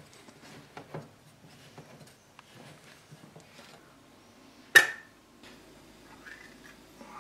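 Metal food cans being opened by hand. First come light clicks and scrapes of metal on metal from a handheld can opener. Just before five seconds in there is one loud, sharp metallic snap with a brief ring.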